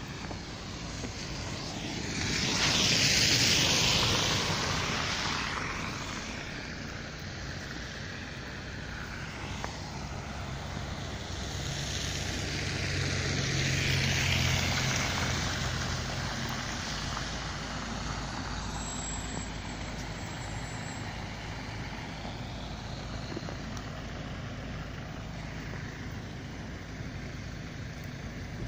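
Road traffic, cars and a box van, passing on a slush-covered road. There are two slow swells as vehicles go by, one about three seconds in and a longer one, with a low engine hum, around fourteen seconds in.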